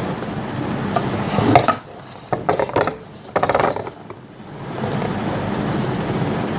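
Slime being pressed and squished by hand, with sticky clicks and crackles; a quieter stretch in the middle holds a few sharp clicks.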